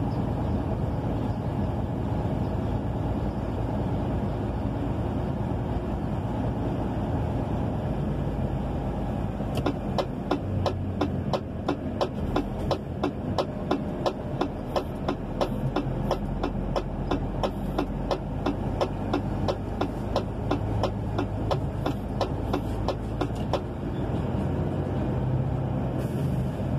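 Truck engine running at low speed, heard from inside the cab. For about fourteen seconds in the middle, a steady clicking about three times a second runs over it.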